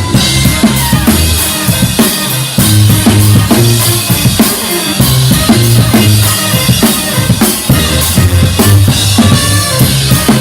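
Live brass band music: a drum kit keeps a steady beat under a low, held bass line, with higher horn parts above.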